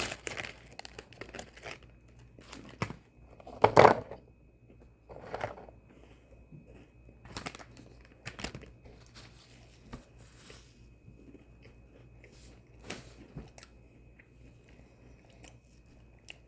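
A person chewing crunchy Oreo sandwich cookies, with irregular short crunches, the loudest about four seconds in.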